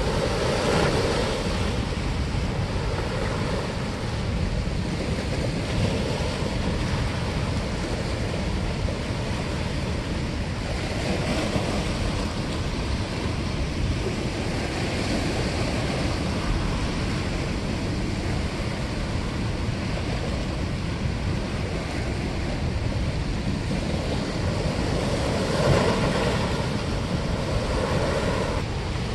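Steady rush of water pouring through a dam spillway.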